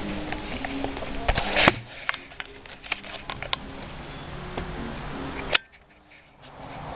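Chickens murmuring softly on the roost, with scattered clicks and rustling, a sharp knock a little under two seconds in and another about five and a half seconds in, after which the sound drops almost to nothing for a moment.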